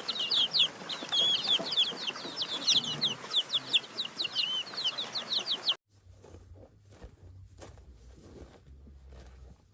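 Birds chirping in quick, high, short notes, several a second, which stop abruptly a little under six seconds in. Faint scuffing and rubbing noises follow.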